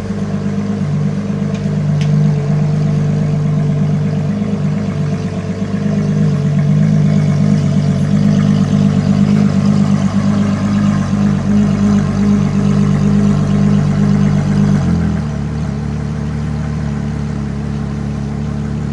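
Ferrari LaFerrari's naturally aspirated V12 running steadily at low speed, somewhat louder in the middle. About fifteen seconds in, the note drops to a lower, steady idle.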